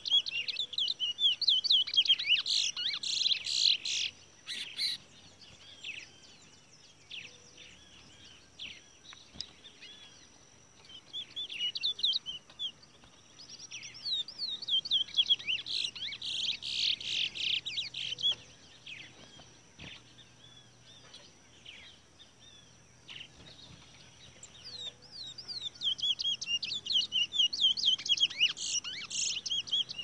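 Caged towa towa (large-billed seed finch) song: bouts of rapid, high chirping and warbling notes, three bouts of several seconds each with quieter pauses between them.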